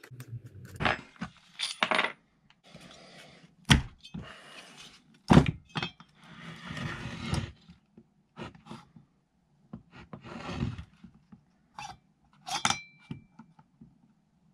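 Hand tools and metal parts on a chainsaw crankcase: a T-handle wrench backing out the T27 engine bolts of a Stihl MS 291 with short scraping runs, sharp knocks, and metal clinks, one with a brief ring near the end.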